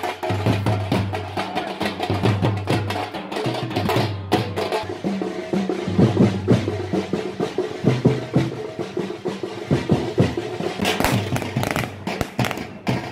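Procession drums, cylindrical drums beaten with sticks, playing a fast, dense rhythm of strikes. Near the end comes a louder cluster of sharp cracks from a firecracker going off.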